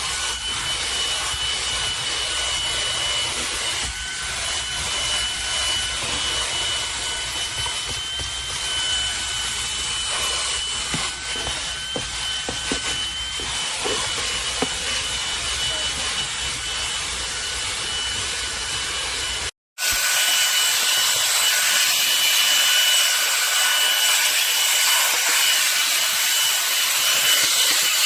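MONSGA MV3 cordless stick vacuum running: a steady rush of air with a high motor whine. It cuts out for an instant about twenty seconds in, then carries on a little louder.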